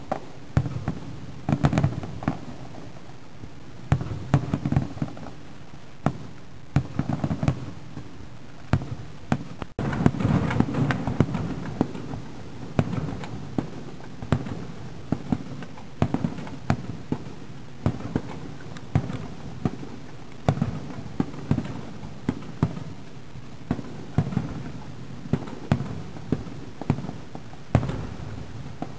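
Aerial firework shells bursting at a distance: a steady run of sharp bangs and crackles, sometimes several a second. The sound breaks off briefly about ten seconds in and comes back louder.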